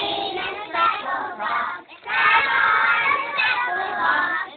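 A group of young preschool children singing together, breaking off briefly about two seconds in before carrying on.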